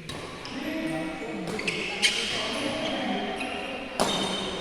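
Badminton rally in a large hall: sharp smacks of rackets hitting the shuttlecock, about five in four and a half seconds, each ringing in the hall, over a background of echoing voices.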